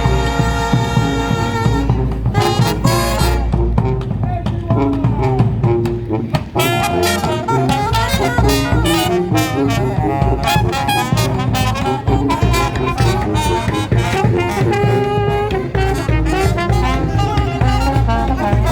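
Live street band playing an upbeat jazzy instrumental, horns carrying the tune over a bass line and a drum beat.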